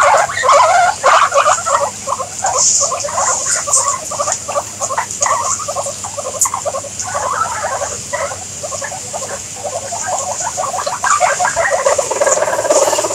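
A herd of guinea pigs squeaking and chattering at once: a dense, overlapping run of short squeaks with no pause, growing a little louder near the end.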